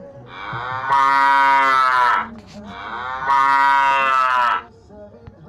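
Cow mooing: two long moos, each about two seconds, one after the other.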